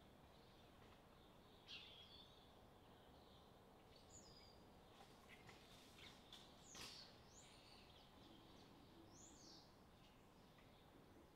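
Near silence with a faint hiss, broken by a handful of short, high bird chirps scattered through it.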